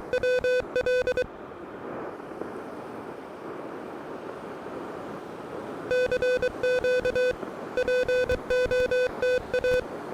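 Morse code sidetone from an Elecraft KH1 transceiver's memory keyer repeating its CQ call: a mid-pitched beep keyed in dots and dashes. It stops about a second in, leaving a steady hiss for about four and a half seconds, and then the keying starts again.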